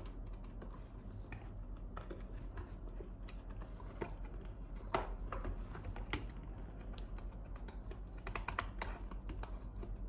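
Hooked craft knife scraping and clicking around the rough edge of a hole drilled in a plastic bottle cap, trimming off the burrs: irregular small scratches and clicks, a few bunched together near the end.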